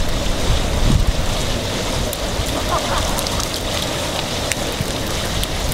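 Water running down the steel face of a water-feature wall, a steady rushing splash with a hand held in the flow, mixed with wind rumbling on the microphone.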